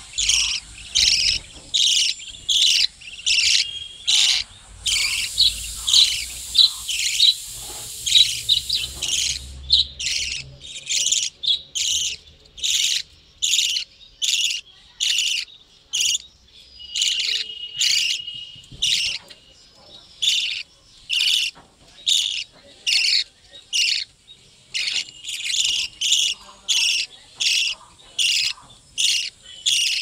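Budgerigars chirping, short high calls repeating steadily about twice a second.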